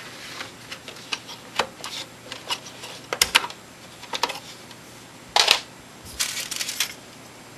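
Scattered sharp plastic clicks and light clatter of RAM memory modules being handled in a PC's memory slots, with the slots' white retention tabs clicking. The loudest is a short, heavier click about five and a half seconds in, followed by a quick run of small clicks.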